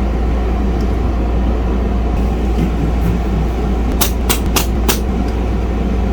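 A small motor running with a steady low drone and a rushing noise. Four quick clicks come about four seconds in.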